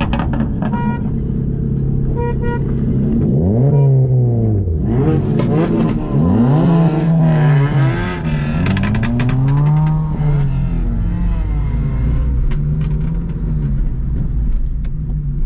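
Car engines revving, their pitch rising and falling in several overlapping runs, heard from inside a car's cabin.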